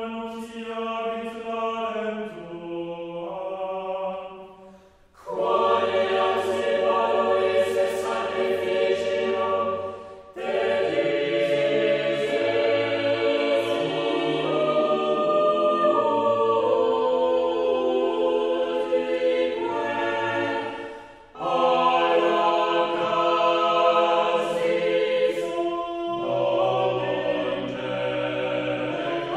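Background music: several voices singing long held chords together, the chord shifting every few seconds, with short breaks about five, ten and twenty-one seconds in.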